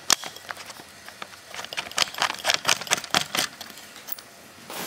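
Camera handling noise: a run of light clicks and knocks, strongest from about a second and a half to three and a half seconds in, as the camera is moved and settled in place.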